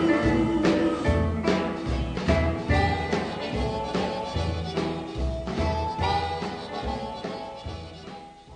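Background music with a steady beat, fading out toward the end.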